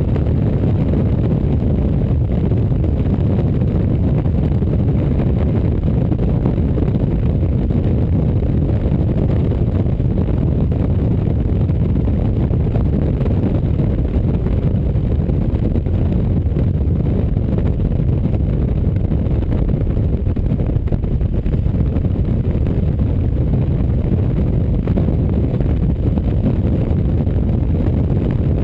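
Steady wind rush and road noise from a motorcycle cruising at road speed, heavy and low, with no change in pace.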